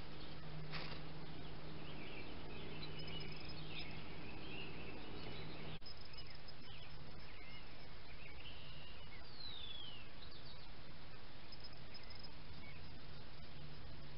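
Outdoor yard ambience through a trail camera's microphone: birds chirping now and then over a steady hiss. A low steady hum runs through the first part and drops away at a sudden break about six seconds in, and there is a single click about a second in.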